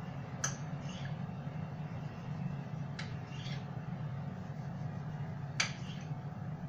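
Kitchen knife slicing through a baked fekkas log on a granite countertop: three sharp clicks as the blade meets the stone, about every two and a half seconds, each followed by a short scrape of the knife. A steady low hum runs underneath.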